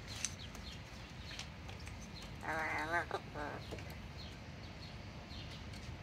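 Yellow-naped amazon parrot mumbling: one short wavering vocalisation about two and a half seconds in, followed at once by a briefer one.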